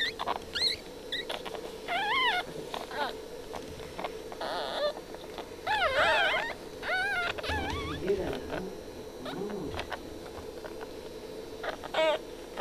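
Newborn Boston Terrier puppies squealing, a string of short high-pitched cries that rise and fall in pitch, while a hand rubs them on a towel.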